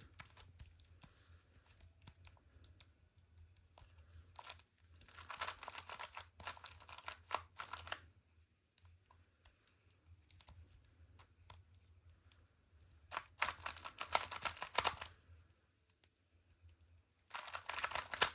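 A plastic 2x2 Rubik's Cube being turned quickly by hand, its layers clicking and clacking in three bursts of rapid turns separated by pauses.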